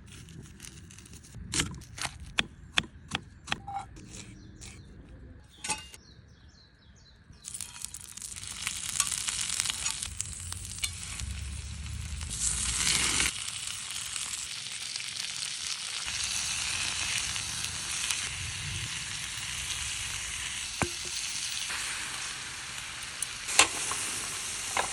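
A few sharp clicks and knocks of cookware being handled, then from about seven seconds in, beef frying in a pan with a steady loud sizzle, stirred now and then, with a sharp clack near the end.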